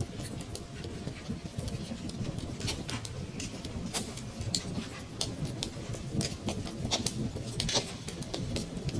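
Wood fire crackling in a fireplace: irregular sharp pops and snaps over a low, steady rumble of the burning fire.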